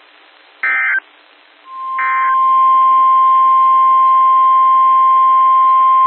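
NOAA Weather Radio alert broadcast: faint static hiss, then two short buzzy digital EAS data bursts a little over a second apart. From about a second and a half in, the loud, steady single-pitch 1050 Hz warning alarm tone sounds, announcing the tornado warning that follows.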